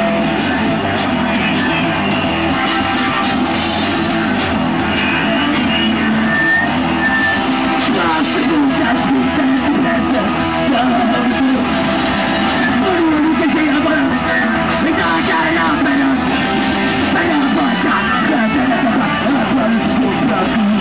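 Hardcore punk band playing live: distorted electric guitar through an Orange amplifier and shouted vocals over the band, steady and loud.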